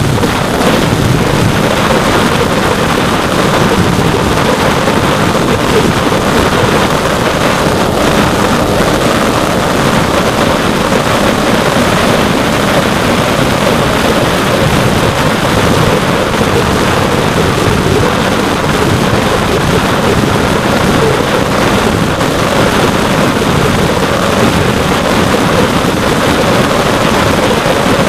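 Brushless outrunner motor driving an 8-inch propeller on an RC plane in flight, a steady loud drone heard through the onboard camera's microphone with heavy wind rush over it.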